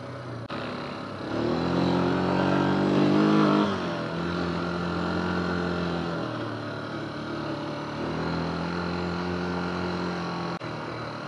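Yamaha Grizzly 350 quad's single-cylinder four-stroke engine running under throttle, heard from on board. It revs up from about a second in, drops back just before four seconds, holds steady, then picks up again about eight seconds in.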